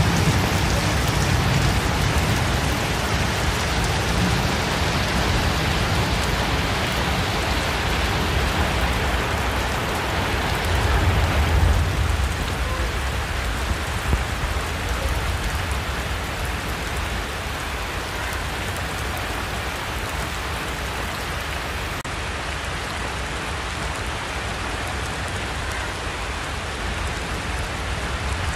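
Steady rain pouring onto the ground and foliage, a loud even hiss. A brief low rumble swells about eleven seconds in, and the rain is slightly lighter after it.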